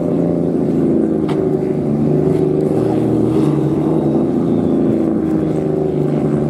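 Nissan Silvia S14 drift car's engine running loudly at low, steady revs as the car rolls slowly, with no revving.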